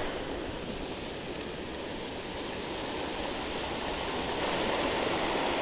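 Steady rushing of a creek waterfall, growing a little louder toward the end.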